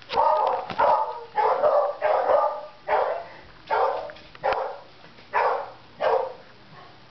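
A dog barking over and over, roughly one bark a second.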